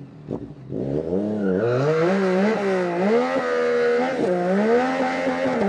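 Yamaha Tracer 9 GT's 890 cc three-cylinder engine accelerating hard through the gears. The pitch climbs and then falls sharply at each upshift, about four times, with wind and road noise under it.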